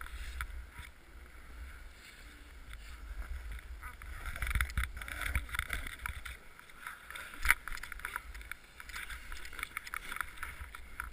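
Snow scraping and hissing under a rider sliding downhill through deep snow, with wind rumbling on the microphone. A sharp knock about seven and a half seconds in.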